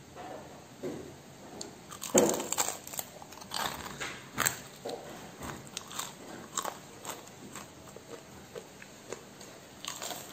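Someone biting into and chewing crispy, twice-fried beef lung (paru goreng), a run of irregular crunches starting about two seconds in, thinning out toward the end.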